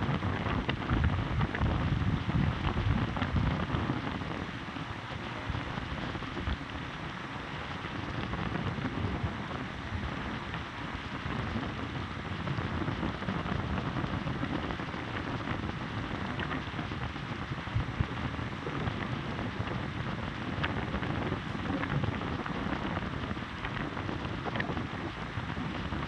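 Heavy rain falling steadily, with many individual drops clicking close by and a deeper low rumble in the first few seconds.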